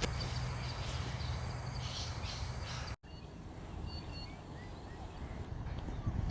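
Steady high-pitched insect trill over outdoor background noise, cutting off abruptly about three seconds in. After that comes quieter ambience with a few short bird chirps.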